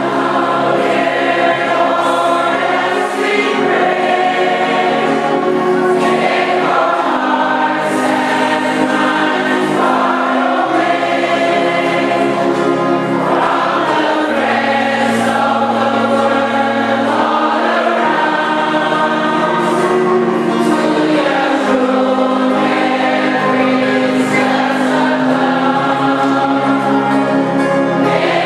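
A choir singing a hymn in sustained chords, loud and steady, the harmony moving every second or two.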